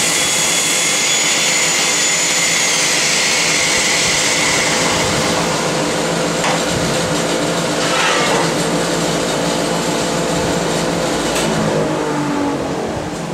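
Porter Cable 7335 random orbit sander with a high whine that falls away about three seconds in as it winds down, over the steady rush of a running dust collector and vacuum. A few light knocks as the mallet and sander are set down.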